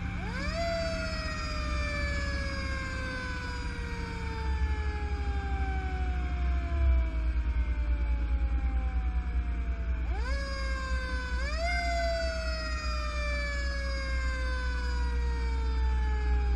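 Fire engine's siren sounding while responding, heard from on the truck. It rises quickly to a high pitch and then falls slowly for several seconds, is wound up again twice in quick succession about ten seconds in, and falls slowly once more, over the steady low rumble of the engine.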